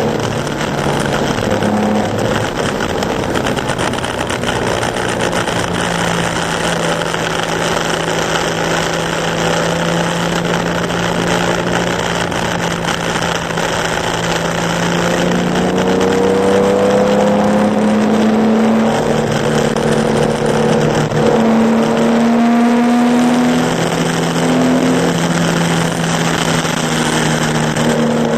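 Porsche 911 2.0-litre flat-six engine at racing speed, its pitch holding, then climbing and dropping as it revs through the gears, with a steady hiss beneath it from the soaked track.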